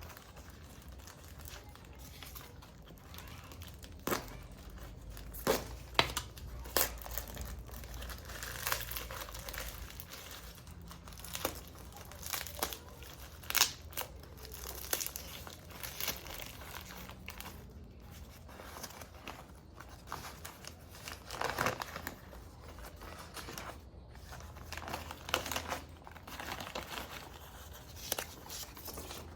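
Packaging being crumpled and torn by hand: irregular crinkling and rustling with scattered sharp crackles.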